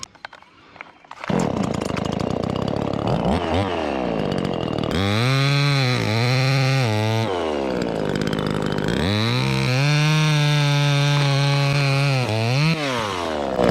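Chainsaw comes in about a second in and runs at a low speed, then is revved up to full speed twice while cutting through a tree branch, its pitch dipping between the two runs; it falls back toward idle near the end.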